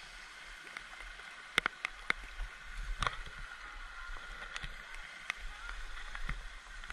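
Water splashing and sloshing as a hooked bass is played at the surface and landed in a net, with a few sharp clicks and knocks.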